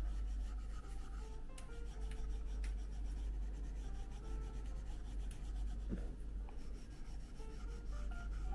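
Apple Pencil tip scratching and tapping across an iPad screen in drawing strokes, with soft background music.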